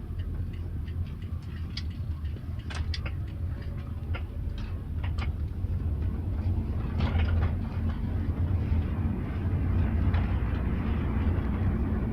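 Short creaks and ticks from the rear door of a second-generation (NHW20) Toyota Prius, over a steady low rumble of the car on the move. The creaks come several times in the first half and again around seven seconds in.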